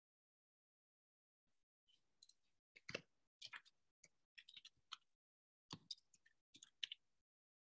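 Near silence broken by a run of faint, irregular clicks and taps, starting about a second and a half in and stopping just before the end.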